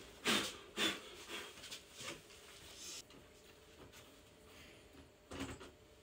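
Handling noise from a flat-screen TV lying face down on a bamboo bed mat: two short scraping knocks about half a second apart near the start, a few fainter knocks, and one more short scrape near the end.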